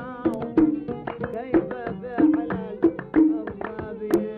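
Kuwaiti sawt music: an oud playing over a steady hand-drum beat.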